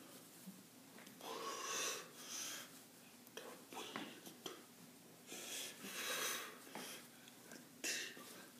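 A person's breathing: faint, breathy exhalations and whispery mouth sounds, coming in short puffs several times.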